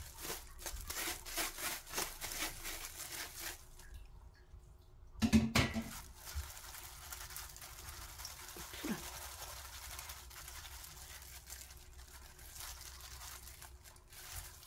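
Hand in a thin plastic glove mixing wet green laver seaweed into salted shredded radish in a stainless steel bowl: the glove crinkles and the wet greens squelch and rustle. There is a brief louder knock a little over five seconds in, and the rustling is fainter after it.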